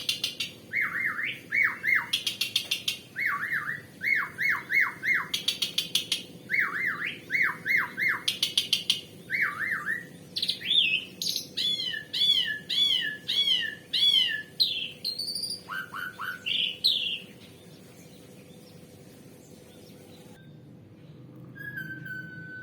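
Asian pied starling (jalak suren) singing in full voice: a varied run of quickly repeated sweeping whistles broken by harsh rasping rattles and arched chirps. The song stops about 17 seconds in, and a single thin whistle follows near the end.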